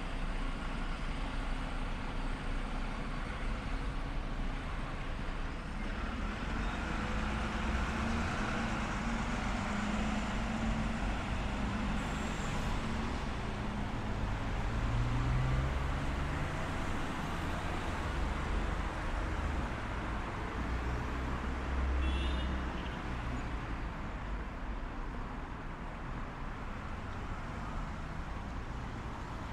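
City street traffic: cars and other motor vehicles driving past in a steady stream, their engine noise swelling and rising in pitch around the middle.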